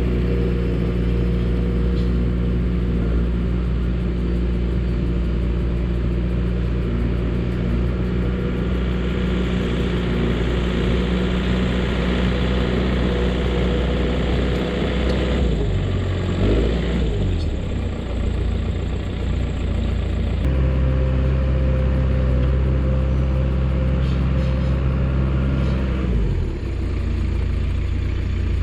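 Dresser bulldozer's diesel engine running steadily under work. Its pitch sags and recovers about halfway through, and the engine note changes again twice near the end.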